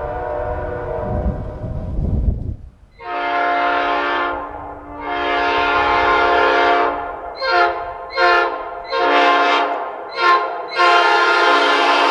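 Multi-chime locomotive air horn blown in a pattern: a chord with low rumbling beneath it cuts off after about two and a half seconds, then two long blasts, a run of about five short toots, and a long blast held near the end.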